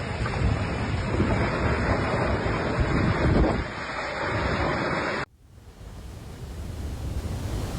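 Strong storm wind buffeting a phone microphone in gusts. About five seconds in it cuts off abruptly to a quieter, steadier rush of wind that slowly builds.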